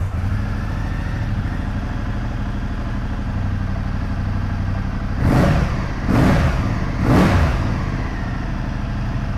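Ducati Multistrada 1200 S's 1,198 cc V-twin engine catching and settling into a steady idle, then revved with three quick throttle blips about a second apart around the middle before dropping back to idle.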